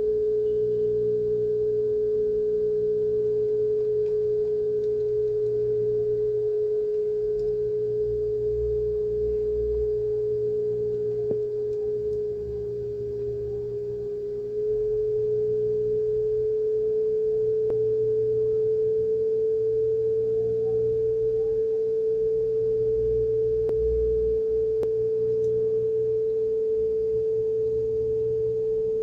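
A 440 Hz sine test tone played back from a cassette on an Aiwa HS-PS100 player, its pitch following the tape speed as the motor speed is calibrated. The tone sags lower and quieter for a couple of seconds about halfway through, then steps back up and holds steady near 440 Hz.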